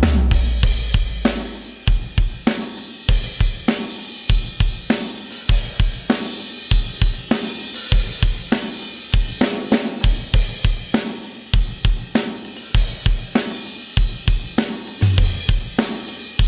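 Recorded drum kit playing a steady beat (kick, snare, hi-hat and cymbals), heard through the Behringer X32's M/S Fair Compressor, its model of the Fairchild 670 tube compressor, on the stereo bus while its settings are adjusted.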